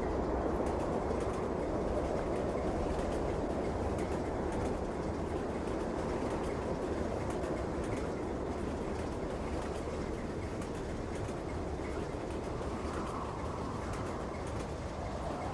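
Train running with a steady rumble, faint ticks and clicks over it.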